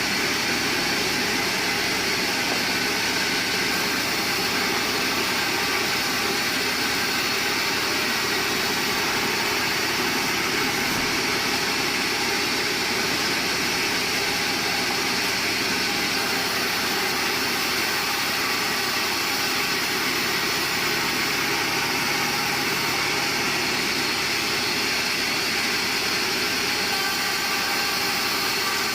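Band sawmill running steadily, a continuous even machine noise with no breaks or changes.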